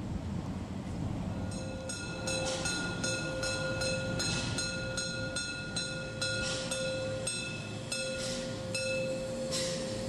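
Narrow-gauge Rasender Roland train running, with a low rumble throughout. From about a second and a half in, a sustained high tone comes in, broken now and then, along with repeated short hissing puffs.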